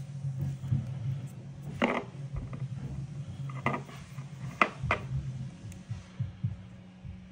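Handling noise as a small 12 V brushless computer fan and its wire leads are set down on a plastic battery case: a few sharp clicks and taps, the first about two seconds in and a quick pair near five seconds, over a low steady hum.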